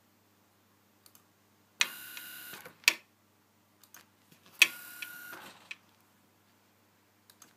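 Sanyo brushed DC servo motor, loose on the bench, snapping through a burst of revolutions at full speed twice, about three seconds apart. Each move is about a second of whine that starts with a sharp kick and ends with a click as the motor stops hard.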